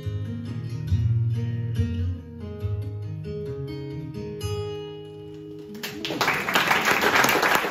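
Acoustic guitar picking the last notes of a song, single plucked notes over bass notes, slowing and fading. About six seconds in, audience applause breaks out and is louder than the guitar.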